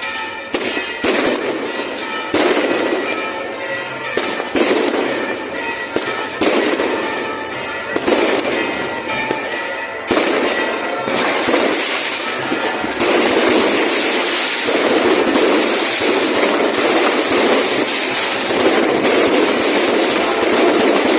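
Fireworks going off: separate sharp bangs about every second or two, then a dense, continuous crackling barrage from about two-thirds of the way in.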